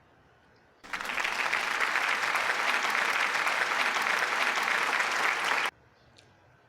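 Applause, likely an edited-in sound effect: dense clapping that starts abruptly about a second in and cuts off suddenly about five seconds later.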